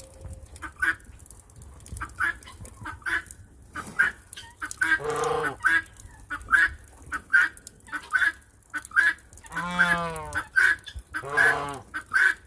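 Farm birds calling over and over in short calls, several a second in bouts, with a few longer drawn-out calls about five and ten seconds in.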